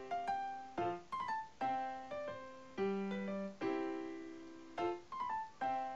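Background piano music: chords struck and left to fade, with a quick run of notes about a second in and again near the end.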